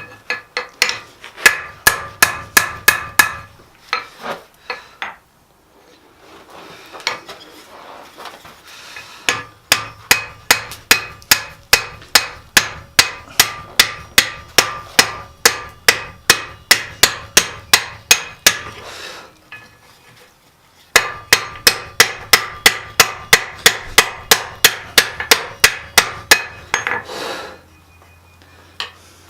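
Blacksmith's hammer striking steel on an anvil in steady runs of about three blows a second, each blow ringing, broken by a few short pauses.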